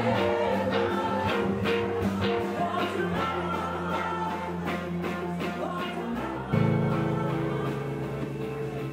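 Music: a song with guitar and a steady beat, getting louder with a change of chord about six and a half seconds in.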